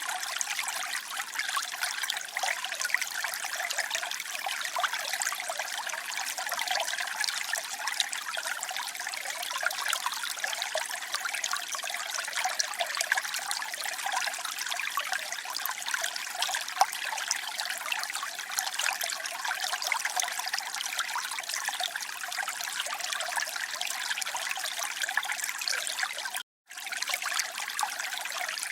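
Water trickling steadily, a constant light splashing with no low rumble. It drops out for a split second near the end, then carries on.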